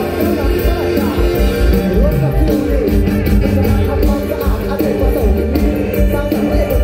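Live amplified mor lam band music, loud, with a steady drum beat and a melody that slides in pitch.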